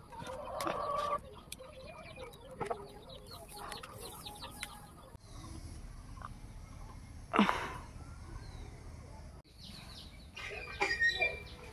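Domestic chickens clucking in short irregular calls, with scattered sharp clicks in the first few seconds and one short loud sound about seven seconds in; the sound breaks off abruptly twice at edit cuts.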